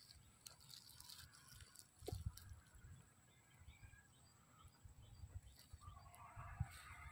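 Near silence: faint low bumps and rustling of dry straw as a dog's paw is handled, with faint bird calls near the end.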